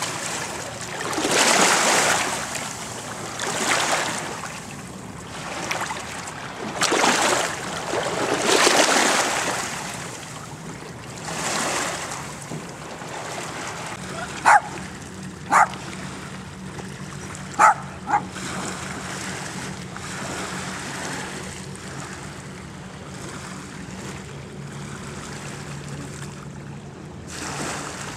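Small dog barking four short, sharp yips: two about a second apart, then a close pair about two seconds later. Before them, swelling washes of splashing water as the dog wades in the shallows.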